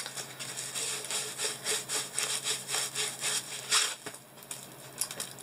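Diamond painting canvas with its plastic cover being rolled backwards by hand to flatten it: repeated rustling, rubbing strokes, about two a second, with a short pause about four seconds in.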